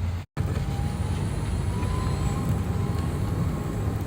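A vehicle running steadily with a low rumble and a faint thin whine above it. The sound drops out completely for an instant just after the start.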